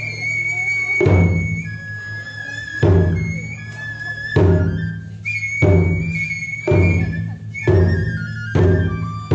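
Taiko drums struck in heavy single strokes, each one ringing on low, about eight in all, the strokes coming closer together towards the end. Over them a Japanese transverse flute plays a slow, high melody of held notes.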